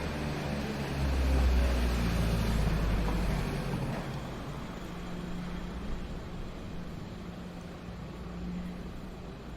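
A low rumble that swells about a second in and fades by about four seconds, over a steady low hum.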